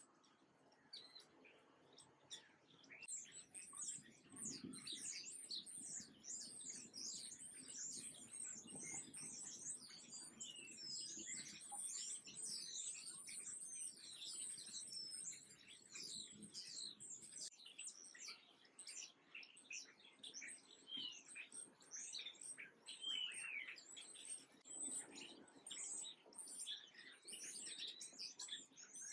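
Many small songbirds chirping at once, a dense chorus of short high-pitched chirps that grows fuller about three seconds in.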